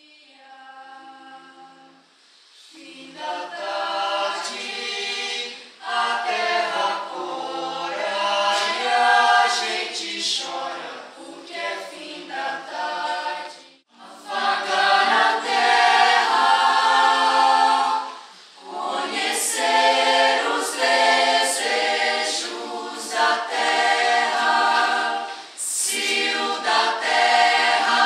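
Mixed choir of men's and women's voices singing unaccompanied in parts, in phrases with short breaths between them. The singing breaks off abruptly about halfway through and starts again.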